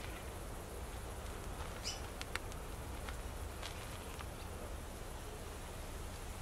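Quiet outdoor background with a steady low rumble and a few faint, short ticks about two to four seconds in.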